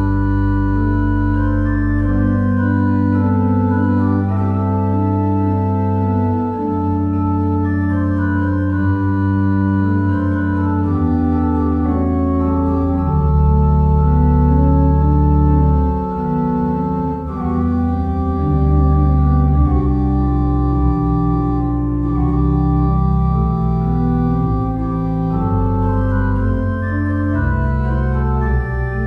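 Organ playing slow music in held chords over long sustained bass notes, the chords changing every few seconds.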